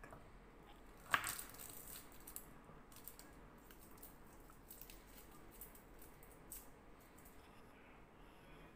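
Garlic cloves being peeled by hand: one sharp click about a second in, then faint scattered clicks and scrapes.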